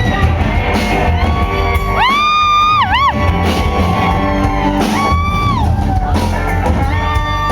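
Live country band playing loudly in a large, echoing hall, with long held whoops over the music, one about two seconds in that dips and rises in pitch and another about five seconds in.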